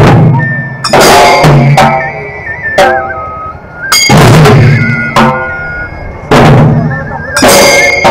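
A group of large barrel dhols played in Valug dhol style: heavy, loud strokes struck together at an uneven rhythm of about one a second, each hit ringing on before the next.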